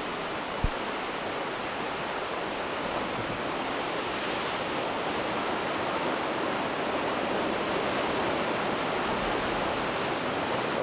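Steady rushing of sea surf, with a single brief knock under a second in.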